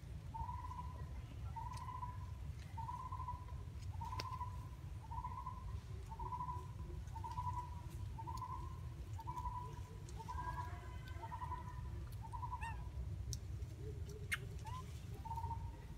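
A bird repeating one short hooting note about once a second, steady as a metronome, with a few other brief calls joining in past the middle. A low rumble runs underneath.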